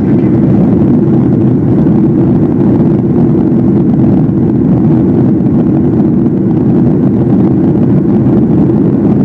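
Steady low drone inside the cabin of a Boeing 737-800 in flight: the CFM56-7 engines and the air rushing past the fuselage, loud and even throughout.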